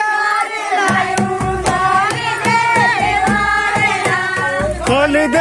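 Group of voices singing a folk song together, accompanied by regular drum strokes.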